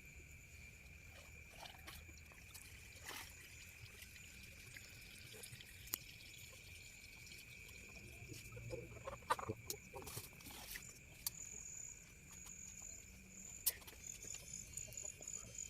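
Frogs calling in a night chorus with insects: a constant high drone, with a pulsing higher trill near the end. Scattered sharp clicks and knocks sound over it.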